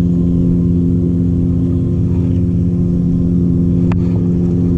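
Boat motor running steadily, a constant low hum. One short sharp click about four seconds in.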